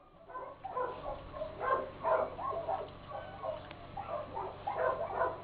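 A dog vocalizing in a string of short, pitched calls, one after another, several a second.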